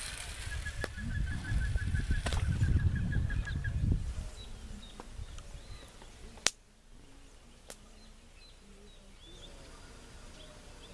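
Small chirping calls of night creatures repeat throughout. For the first four seconds a low rumbling noise lies on the microphone, with a rapid pulsing call that lasts about three seconds. A single sharp click comes about six and a half seconds in.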